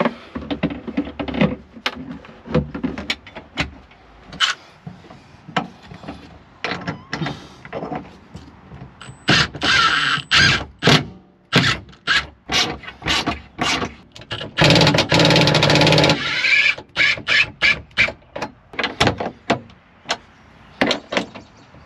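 Bolts for a car subwoofer enclosure being run in with a Milwaukee cordless driver: short bursts of the driver about halfway in and a longer run of about two seconds a little later. Around them are many clicks and knocks of fasteners and plastic parts being handled, with closely spaced clicks near the end as a hand tool tightens a bolt.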